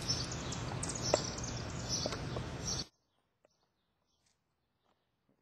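Steady outdoor background noise with a few short, high chirps. It cuts off abruptly about three seconds in, and near silence follows.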